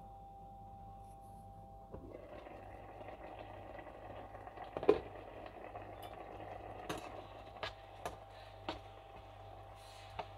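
Mushroom curry simmering in a nonstick frying pan: a soft bubbling sizzle comes in about two seconds in. A loud knock comes about five seconds in, then several lighter clicks of a spatula against the pan as the curry is stirred.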